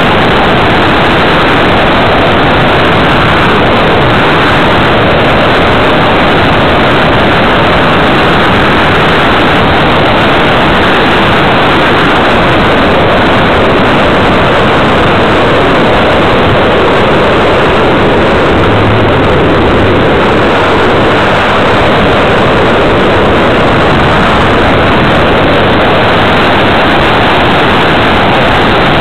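Steady, loud in-flight noise from an electric RC model airplane (E-Prairie L), mostly air rushing over the onboard camera's microphone.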